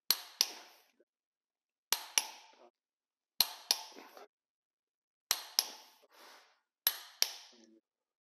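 Click-type torque wrench breaking over on cylinder-head bolts, giving a sharp double click five times, about every one and a half to two seconds. Each double click marks a bolt reaching its 80 foot-pound setting.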